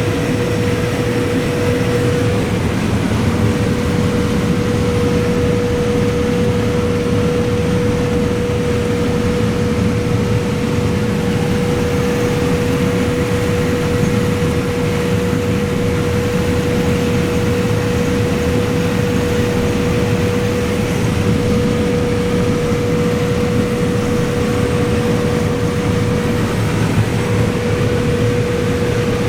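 Claas Lexion combine running steadily while harvesting corn: an even machine drone with a constant whine held on one pitch.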